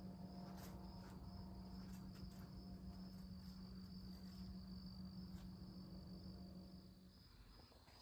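Crickets trilling steadily in the evening, faint, with a low steady hum underneath that stops near the end.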